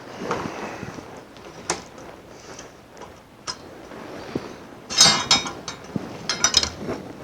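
Glass neon tubing being handled and lifted out of the sign, with scattered light clicks and a couple of short bursts of clinking and rattling about five and six seconds in.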